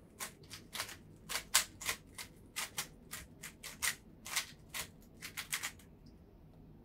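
QiYi smart 3x3 speed cube being turned by hand, a quick, irregular run of about twenty plastic clacks as the layers are twisted through a scramble sequence. The turning stops about six seconds in, as the scramble is complete.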